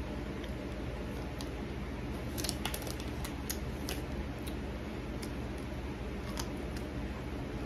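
Popcorn bag crinkling in short, sharp clicks as popcorn is taken out. The clicks are thickest from about two to four seconds in, with a few more later as a piece is eaten, over a steady low hum.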